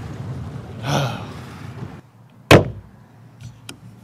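Wind and water noise from an open boat on choppy water, with a brief faint voice about a second in. After a cut, a single sharp knock about halfway through is the loudest sound, followed by a few faint clicks.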